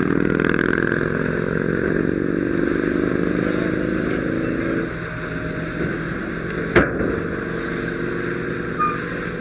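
An engine running steadily, its higher tones dropping away about five seconds in, with one sharp click near the end.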